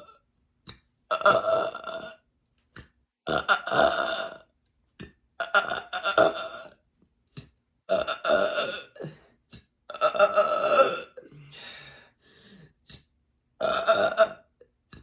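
A woman belching over and over: six loud burps about every two seconds, each lasting about a second, with a fainter, drawn-out one between the last two. The gas comes from a litre of fizzy sparkling water she has drunk.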